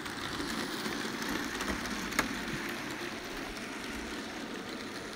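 HO scale model train running on its track: a steady whir and rolling rattle, with one sharp click about two seconds in.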